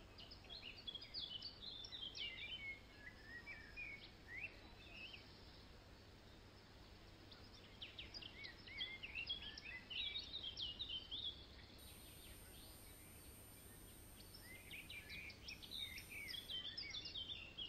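Wild birds singing in three spells of quick, high chirps and trills, over a faint steady low rumble.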